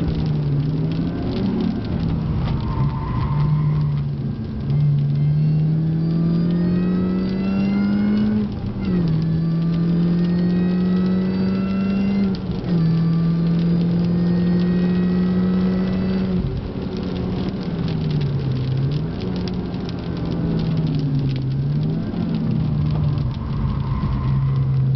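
Mini Cooper S R53's supercharged four-cylinder engine heard from inside the cabin, pulling hard up through the gears. The engine note climbs steadily and drops back at each upshift, about every four seconds, then dips and recovers twice near the end.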